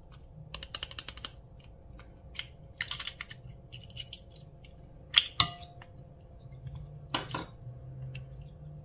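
Small hard objects being handled, clicking and tapping in irregular clusters. Two sharp clinks about five seconds in are the loudest, the second leaving a brief ring. A short clattering rattle follows about seven seconds in.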